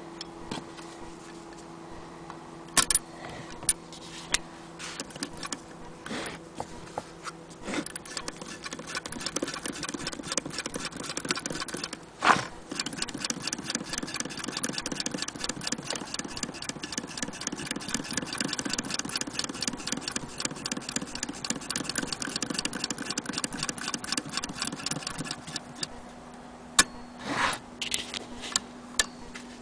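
Antique Willcox & Gibbs chain-stitch sewing machine stitching through cloth. A few separate clicks come first, then a fast, even clatter of needle strokes starts about eight seconds in and runs until near the end, with one sharp louder click partway through. A couple of single clicks follow after the stitching stops.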